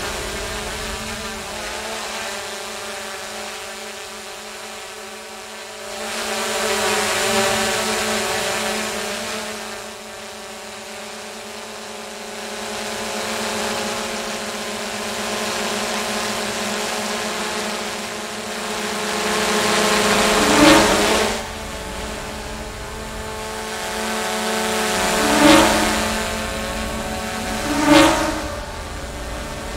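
Quadcopter drone's propellers buzzing with a steady hum. It swells and fades as the drone moves closer and farther, and peaks sharply three times in the second half as it passes close.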